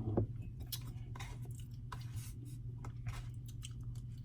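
Close-miked chewing: a person eating, with scattered soft mouth smacks and clicks over a steady low hum.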